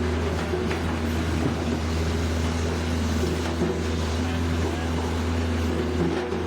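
Firewood processor's engine and hydraulics running steadily: a continuous low hum with a constant drone above it.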